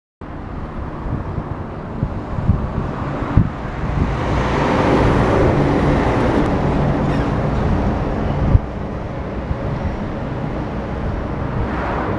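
A vehicle passing, its noise swelling to a peak about five seconds in and easing off, with a few brief low knocks.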